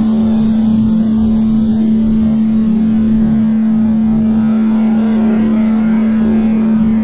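Ambient drone track: one steady humming tone held without change, over a constant wash of rushing, shifting noise.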